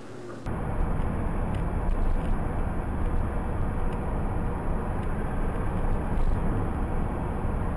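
Steady road and engine noise of a car driving at about 74 km/h, heard from inside the car through its dashcam; it starts abruptly about half a second in.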